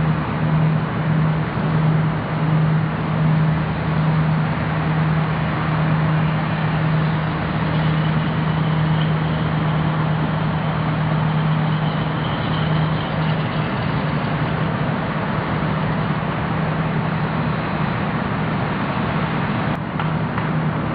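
A vessel's engine running steadily under way: a low, even drone with a slight pulse, over a constant rushing noise.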